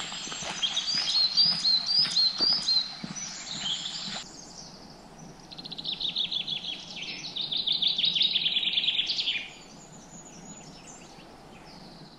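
Woodland songbirds singing: repeated high chirping phrases, then, after an abrupt change about four seconds in, a fast trilling song for about four seconds before it fades to faint background.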